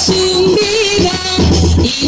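Live Spanish jota folk music: a melody in held notes over a quick, steady percussive beat.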